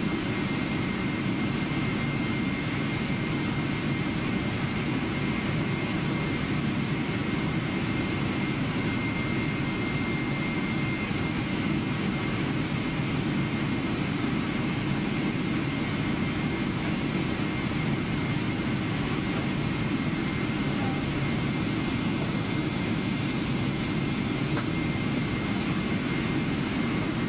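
Boeing 777's jet engines at idle while the airliner taxis, heard from inside the cabin: a steady rumble with a thin, constant high whine over it.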